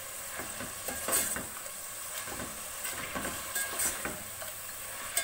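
Pieces of raw beef sizzling in hot oil in a metal pot while a metal spoon stirs them, scraping against the pot several times. The meat is being seared in the onion and spice masala until it changes colour.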